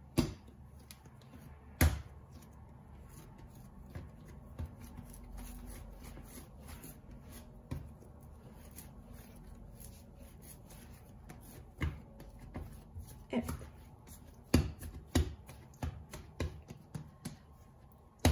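Bread dough kneaded and folded by hand on a countertop: scattered soft thumps and pats as the dough is pressed and turned on the counter, with a quicker run of them in the second half as it is worked into a ball.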